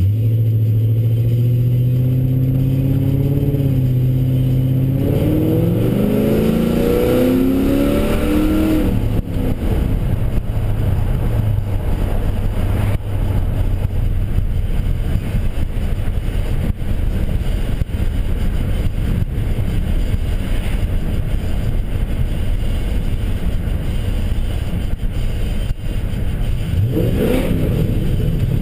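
The 4.6 L V8 of a 2009 Mercury Grand Marquis, breathing through Stainless Works catted long-tube headers and a chambered cat-back exhaust, heard from inside the cabin. It holds a steady low drone at first, then climbs in pitch as the car accelerates from about five to nine seconds in. It settles into a steady cruise and rises again near the end.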